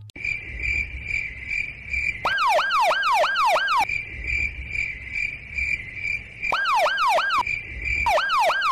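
Steady insect chirring, broken three times by short bursts of a police siren's fast falling wail, about three wails a second.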